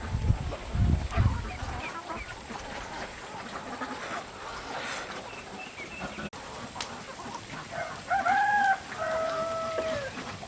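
A rooster crows near the end, one drawn-out call in two parts that drops in pitch as it ends. Low rumbling thumps fill the first two seconds.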